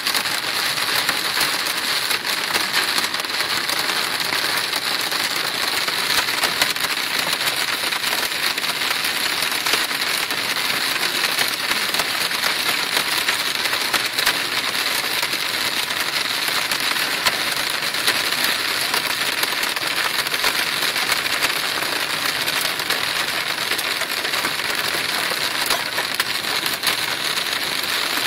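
Heavy storm rain pelting a car: a dense, steady downpour full of sharp ticks, unchanged throughout.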